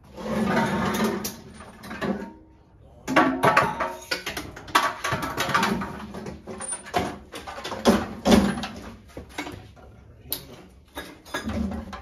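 Repeated knocks, clunks and scraping of heavy metal engine parts being handled and set down.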